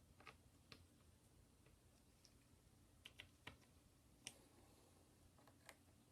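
Near silence with a faint hum, broken by scattered faint clicks and light taps of small parts and tools being handled during an iPad repair.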